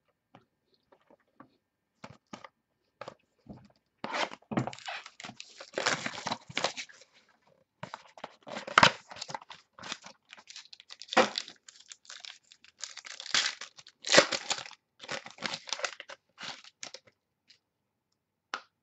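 Trading card packaging being torn open and crinkled, then cards handled and slid against each other, in a run of irregular rustles and tears with the loudest ones in the middle.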